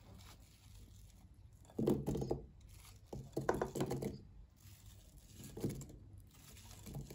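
Diced apple pieces tumbling out of a glass bowl onto the dough in a baking tin, pushed along by a utensil scraping the bowl. They come in a few bursts, the loudest about two seconds in and again from three to four seconds in.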